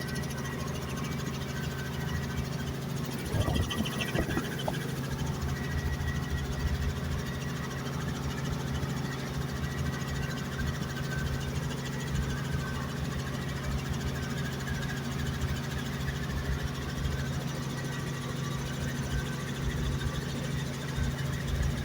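Helicopter running steadily: a constant engine and rotor drone with a rumbling low end, and a few brief knocks about three and a half seconds in.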